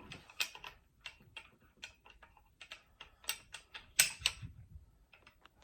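Irregular clicks and taps of a camera being fitted onto a tripod mount, with a sharper, louder click about four seconds in.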